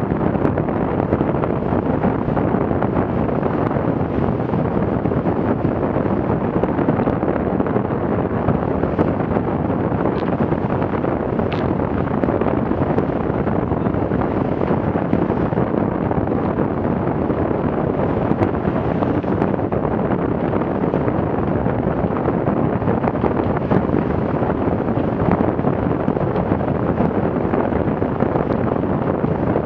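Steady wind buffeting the microphone, mixed with the rush of water and spray along the hull of a Farrier F-82R trimaran sailing at about 10 to 11 knots through waves.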